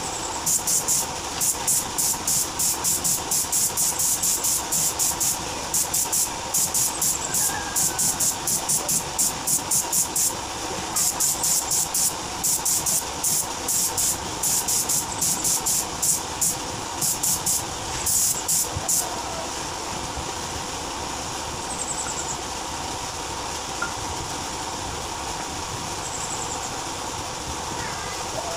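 Gravity-feed air spray gun hissing in many short bursts, a fraction of a second each, as the trigger is pulled again and again to spray paint onto a car alloy wheel. The bursts stop about two-thirds of the way through, leaving a steady background noise.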